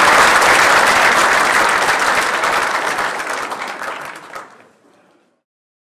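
Audience applauding, a dense patter of many hands clapping that dies away and is gone about five seconds in.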